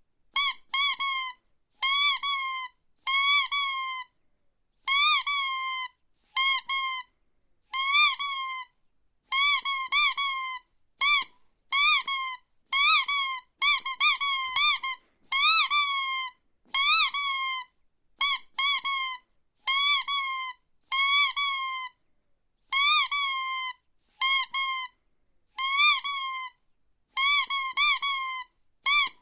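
Rubber duck toy being squeezed over and over, giving short high squeaks with a slight rise and fall in pitch, often in quick pairs, about one or two a second with brief silences between.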